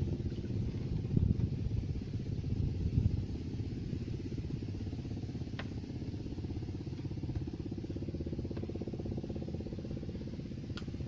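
A small engine running steadily at an even idle, a low rumble with a fast, regular beat, with a couple of faint short clicks.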